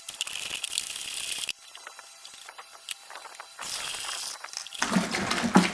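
Two bursts of hissing swish as wort is stirred in a plastic fermenter to dissolve lumps of brew enhancer (dry malt extract), with faint clicks in the pause between them.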